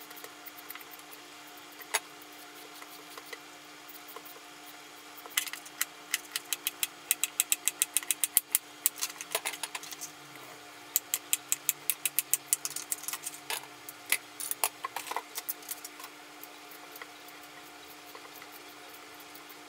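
Kitchen knife slicing a carrot into rounds on a plastic cutting board: two quick runs of chopping strokes, about five a second, with a steady hum underneath.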